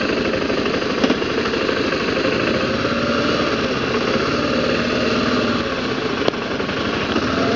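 BMW G650GS motorcycle's single-cylinder engine running at low road speed in slow traffic, a steady throb whose pitch rises and falls gently. Two brief sharp clicks, about a second in and again near the end.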